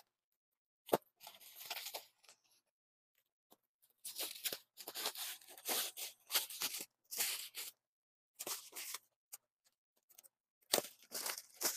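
Thin plastic bag packaging rustling and crinkling in irregular bursts as it is cut and pulled open. There is a single sharp click about a second in.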